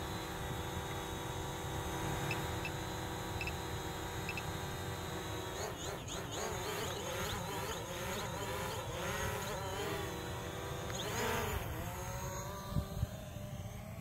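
DJI Mavic Pro quadcopter flying in sport mode on 8331 low-noise propellers: a multi-toned propeller whine. The whine holds steady at first, then wavers up and down in pitch from about six seconds in as the motors change speed, swelling briefly near eleven seconds. Two short knocks come near the end.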